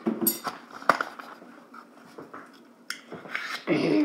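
Hands handling GoPro packaging and accessories on a table: scattered sharp clicks and knocks of hard plastic with rustling between them. A short, louder voice-like sound comes near the end.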